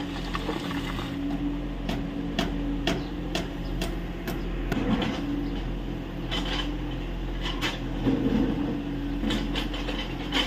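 Kubota U30 mini excavator's diesel engine running steadily while digging, with a series of sharp knocks over it: about two a second starting about a second in, then more in short groups later.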